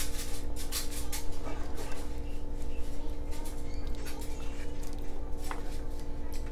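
A plastic spoon stirring thick, chunky sauce in a cast-iron skillet: wet squelching with a few short scrapes and knocks of the spoon against the pan, over a steady low hum.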